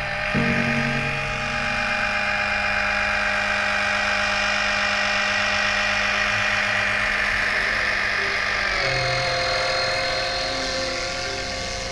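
Small 12V electric oil-extraction pump running steadily with a whine, drawing engine oil out through the dipstick tube. Its pitch drops slightly about nine seconds in.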